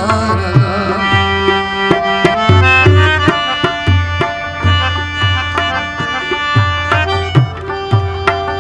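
Instrumental interlude of a Pashto ghazal: the harmonium holds steady chords while the tabla keeps a regular rhythm with deep bass-drum strokes, and a rubab plucks along. A sung line trails off in the first second.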